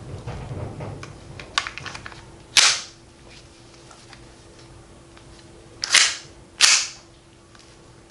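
Maruzen Walther PPK gas-blowback airsoft pistol firing three shots, each a short, sharp pop: one a little over two seconds in, then two close together about three seconds later. A few light clicks come before the first shot.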